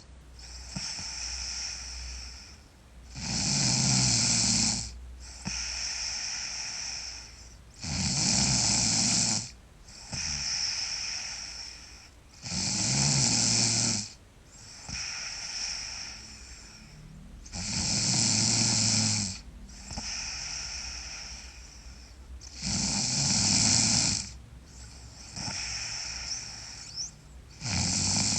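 A sleeping girl snoring loudly, in a regular cycle. A loud low snore of about a second and a half comes about every five seconds, with softer breathing sounds between.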